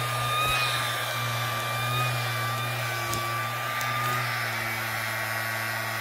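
Small 9-volt battery-powered fan in the base of a mini inflatable waving tube man, running steadily: a whining motor and rushing air, a little loud.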